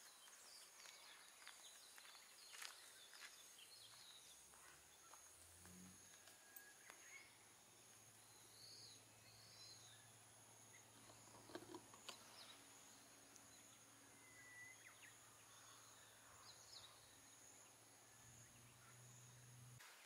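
Near silence: faint outdoor ambience with a steady high-pitched tone, a few faint chirps and a low hum.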